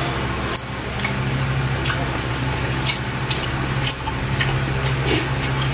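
Wet, smacking eating sounds of someone chewing adobo octopus with an open mouth while his fingers work in the sauce. Sharp wet clicks come every second or so over a steady low hum.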